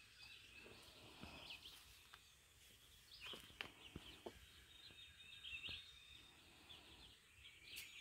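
Near silence with faint, scattered high bird chirps and a few soft clicks.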